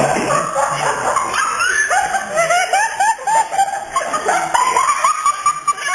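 Short, repeated animal calls, several a second, mixed with people's voices.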